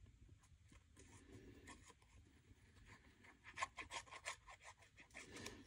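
Mostly near silence, with faint rubbing and a run of soft scratchy ticks in the second half as collage paper is handled.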